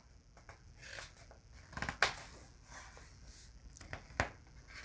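Paper pages of a picture book being turned by hand: faint rustling with a couple of sharp paper flicks, about two seconds in and again near the end.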